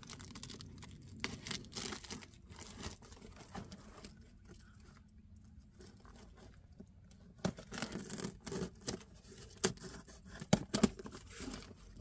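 Packing tape being torn and peeled off a cardboard box, with the cardboard scraped and handled: short scattered rips and rustles, quieter for a stretch in the middle and louder, sharper rips in the last few seconds.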